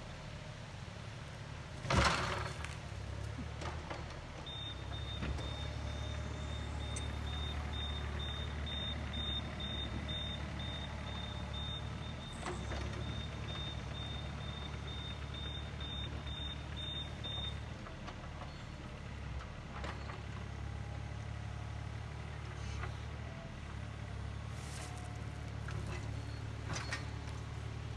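Small excavator's engine running steadily under work, with one loud sharp knock about two seconds in. From about four seconds in, a high-pitched alarm beeps in an even series for some thirteen seconds, the machine's travel alarm as it moves.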